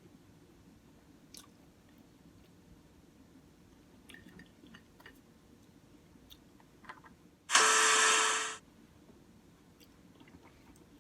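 Quiet close-up chewing of a bacon, egg and cheese croissant sandwich, with small wet mouth clicks. Past the middle, a sudden loud hiss-like burst lasts about a second and then cuts off.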